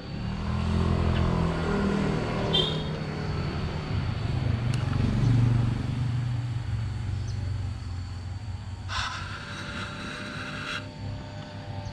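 A motor vehicle's engine running, its low hum rising and falling in pitch, with a separate high held tone lasting about two seconds near the end.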